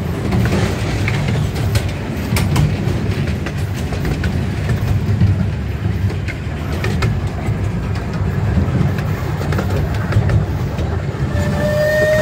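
Small amusement-park passenger train rolling along its track, heard from aboard an open car: a steady low rumble with scattered clicks from the wheels. Near the end the train's horn starts one steady toot.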